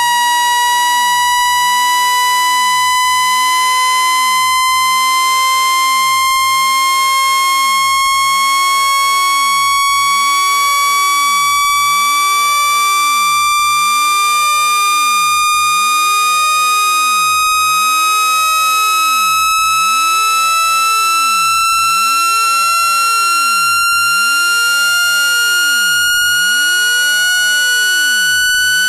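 Electronically generated speaker-cleaning tone, a single buzzy, loud pitch with overtones rising slowly and steadily, played to vibrate water and dust out of a phone speaker.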